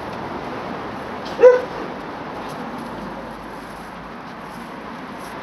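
A dog gives one short bark about a second and a half in, over steady background noise.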